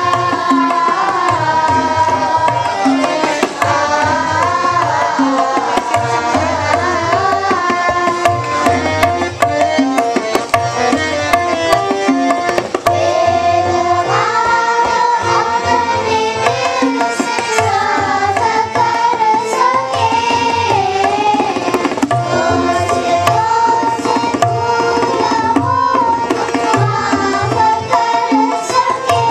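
A group of children singing a Hindu devotional song (bhajan) together, the melody rising and falling, over a steady rhythm of drum strokes.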